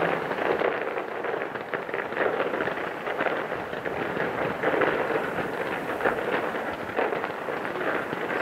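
Fireworks crackling: a dense, continuous stream of small pops with no single big bang.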